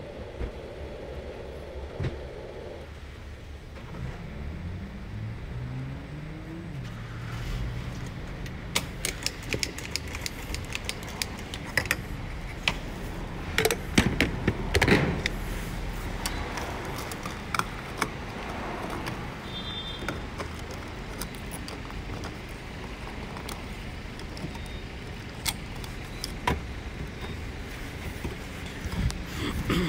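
A car running with a steady low rumble, its engine note rising about four seconds in. Over the middle come many sharp clicks and knocks, loudest about halfway, and a short high beep sounds about twenty seconds in.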